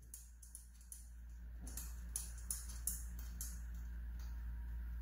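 A ratchet clicking in a steady rhythm, about three sharp clicks a second, as a rear-shock mounting nut is wound off, over a steady low hum.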